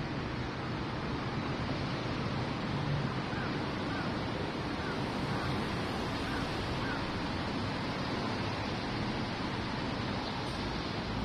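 Steady outdoor rushing noise with no distinct event, with a few faint, short high chirps around the middle.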